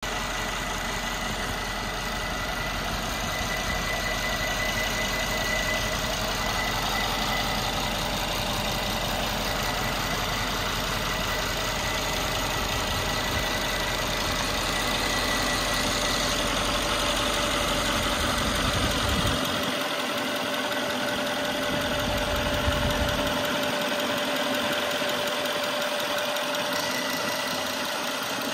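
Mercedes-Benz W221's twin-turbo V6 idling steadily, heard close over the open engine bay, with a thin, steady high whine above the engine note.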